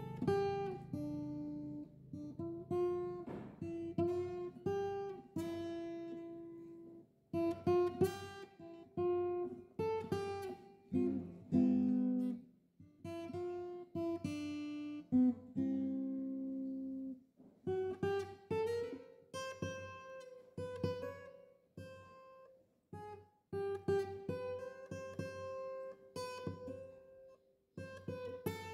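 Background music: acoustic guitar picking single notes and strummed chords, each note ringing and dying away.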